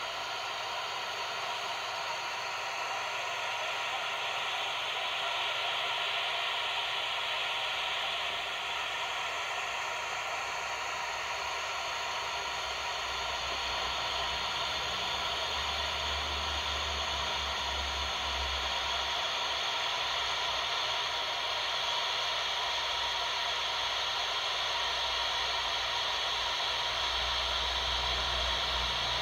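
Steady static hiss from a Cibi RCI-2950 CB transceiver's speaker, receiving an empty channel with the squelch open. A low rumble rises and fades in the second half.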